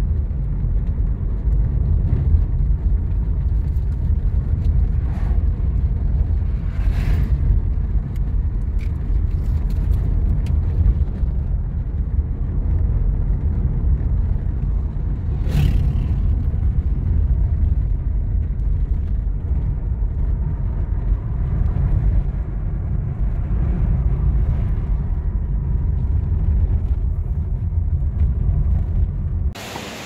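A car driving: a steady, loud low rumble of road and engine noise, with a few faint brief rustles over it.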